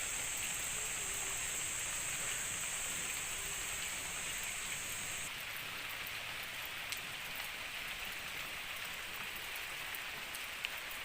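Steady rain falling, with a few faint drip ticks. A constant high-pitched whine runs over it and cuts off suddenly about halfway through.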